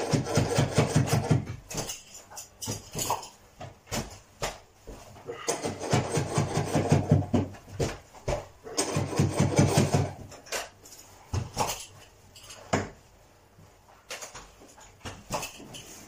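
Hand tools working fitted carpet into the edge along the skirting board: three bursts of rapid scraping strokes, several a second, with scattered single knocks in between.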